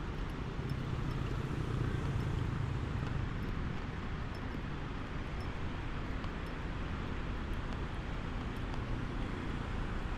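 Steady street traffic: cars running past, swelling a little about two seconds in.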